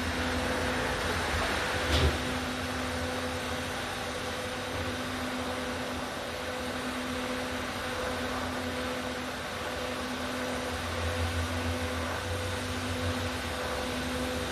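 Electric arc welding on stainless steel plate: a steady hiss over the welding machine's electrical hum, with one short click about two seconds in.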